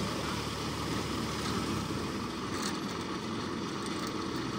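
Rice combine harvester engine running steadily: an even, unchanging mechanical rumble.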